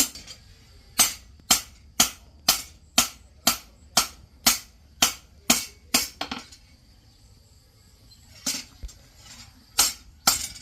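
Hammer striking steel on an anvil, about two blows a second with a bright metallic ring after each. The blows stop for about two seconds midway, then come again more unevenly.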